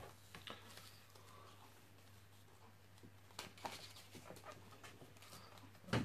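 Faint handling noises of an unboxing: light scattered taps and clicks of containers and packaging being moved, with a louder knock just after the start and another near the end, over a steady low hum.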